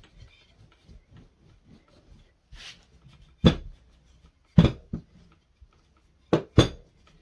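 Rolling out pastry dough with a rolling pin on a floured work surface: faint rubbing broken by several sharp knocks, two close together near the end.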